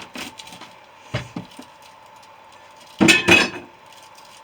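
Metal clanks from refrigerator compressor parts being knocked or handled: one sharp knock, then a louder clatter of two or three ringing metal hits near the end.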